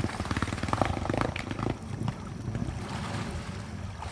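Honda ATC 250SX three-wheeler's single-cylinder engine running half-submerged in deep water, a fast, uneven pulsing rumble, with the wheels churning and splashing water. The pulsing is busiest in the first two seconds.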